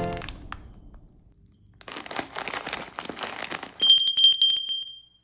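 Plastic snack wrapper crinkling for about two seconds, then a quick run of clicks under a high, steady ringing tone that fades out near the end.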